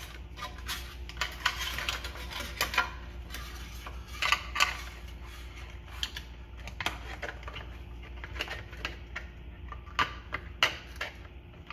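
Flat steel recoil-starter spring of a small Johnson/Evinrude outboard being worked by hand into its starter housing: irregular metallic clicks, clinks and brief scrapes as the spring strip knocks and slides against the housing.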